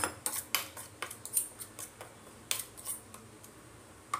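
Steel spoon stirring a wet spice paste in a stainless steel bowl, scraping and clinking against the metal in quick, irregular strokes, busiest in the first second and again about two and a half to three seconds in.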